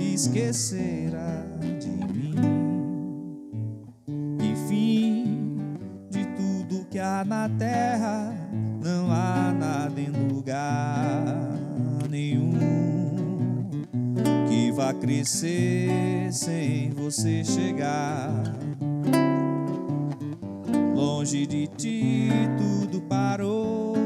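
A man singing a Brazilian MPB song to his own acoustic guitar, which he plucks and strums in a steady rhythm, with a short break in the playing about four seconds in.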